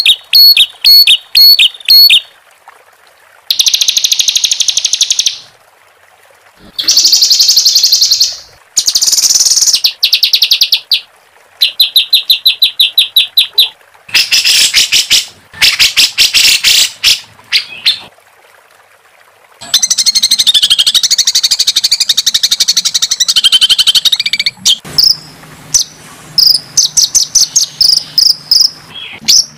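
Songbird song from an edited bird-song training recording (masteran): a string of loud, rapid trills and sharp repeated-note 'shot' phrases, each a second or two long and separated by short pauses. About two-thirds of the way through comes a longer, more varied warble, followed by a quick run of evenly spaced chips near the end.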